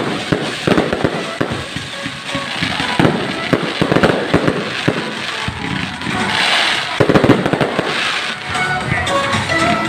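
Fireworks display: many bangs in quick succession, with a stretch of crackling a little after the middle, over music.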